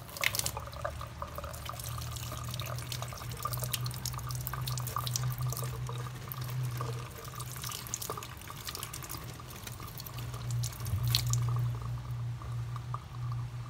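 Water running from a kitchen tap and splashing off a whole watermelon as it is rinsed and turned by hand, with a steady low hum underneath.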